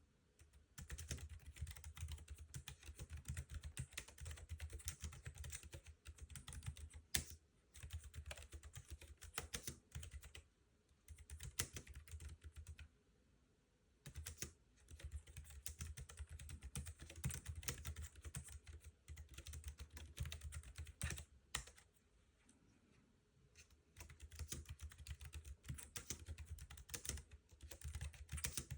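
Keychron B1 keyboard being typed on in fast, continuous runs of key clicks with a low thud under each, broken by a few short pauses.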